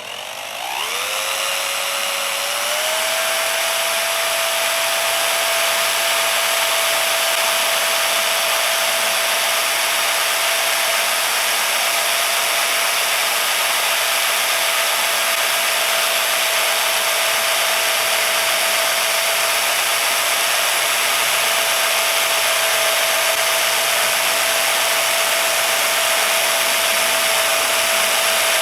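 Electric drill fitted with a buffing pad, starting up with a rising whine that settles about three seconds in. It then runs steadily, with a hiss from the pad buffing a piece of aluminum.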